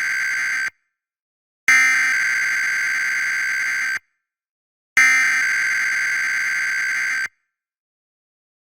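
Emergency Alert System SAME header data bursts: harsh buzzing digital screeches. One burst ends just under a second in, then two more follow, each about two seconds long with about a second of silence between.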